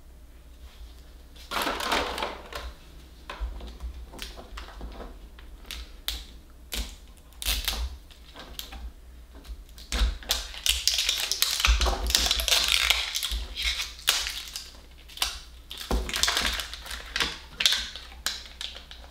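Crinkling and tearing of plastic wrapping peeled off an L.O.L. Surprise ball, with many sharp clicks and taps of plastic. It is busiest about halfway through.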